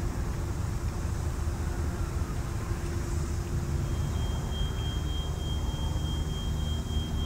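Steady low rumble with a light hiss of outdoor harbour ambience. A faint, thin, high-pitched steady tone comes in about halfway through.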